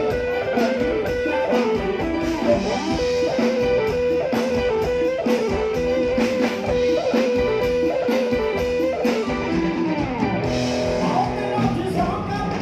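Live band playing an instrumental passage of a Thai luk thung song, with electric guitar to the fore over a steady beat; a long held lead note in the middle gives way to a sliding line near the end.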